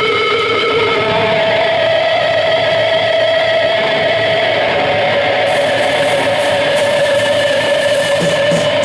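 Electric guitar feedback from the amps between songs: loud sustained tones held without rhythm, the main tone shifting pitch about a second in. Cymbal wash comes in about five and a half seconds in.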